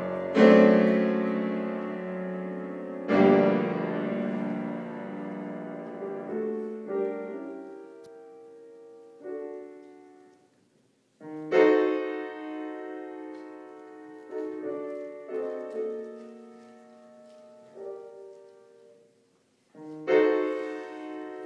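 Grand piano playing a classical solo: loud chords struck and left to ring down, with softer notes in between. Twice, about halfway and near the end, the sound stops briefly before another loud chord.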